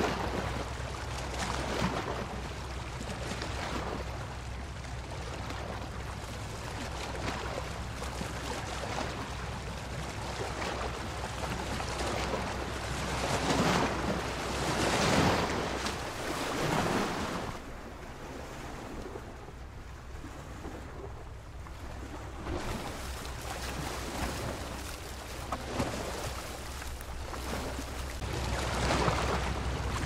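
Ocean surf breaking and washing on a beach, the noise swelling and ebbing, with the biggest surges about halfway through and again near the end, over a steady low rumble.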